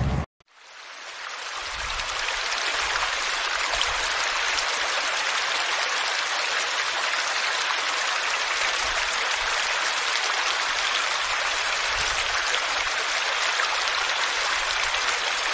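Small stream spilling over mossy rocks into a pool, a steady rush of running water. The sound before it cuts off abruptly a fraction of a second in, and the water fades in over the next two seconds.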